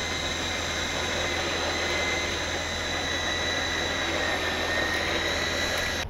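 Electric winch on a pickup's front bumper winding in its cable under a light load, pulling a car up an icy driveway. It runs with a very noisy, steady high whine and cuts off suddenly at the end.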